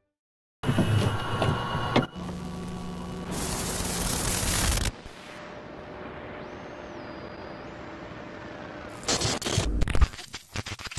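Edited-in VHS tape transition sound effect: clicks over a low hum, a hiss of tape static that swells and then settles into a quieter steady hiss, and stuttering bursts of glitch noise about nine seconds in.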